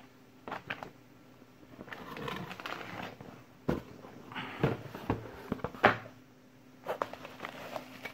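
Handling noise from a paper instruction manual and packaging being put aside on a workbench: paper rustling with several short knocks and taps, the sharpest about six seconds in.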